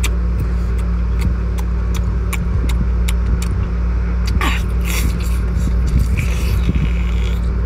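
Steady low engine drone, with a string of sharp clicks and knocks from handling shellfish.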